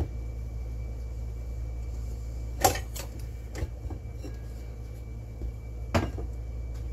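Two sharp knocks about three seconds apart, with a few lighter taps between, as things are moved about in a kitchen, over a steady low hum.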